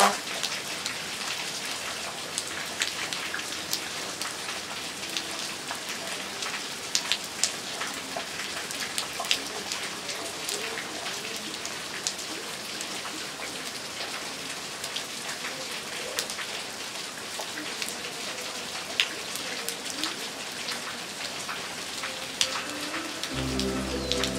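Steady rain falling on pavement and foliage, with individual drops ticking sharply now and then. Soft music comes in near the end.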